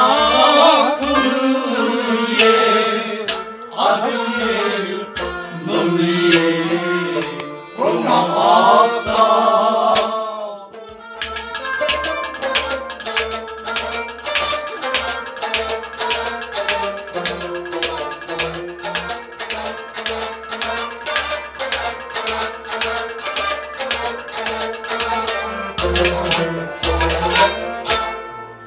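Kashmiri Sufi song: a man sings over a hand-struck pot drum and a plucked rabab. About eleven seconds in, the singing stops and the pot drum and strings carry on alone in a quick, even beat of about three strokes a second.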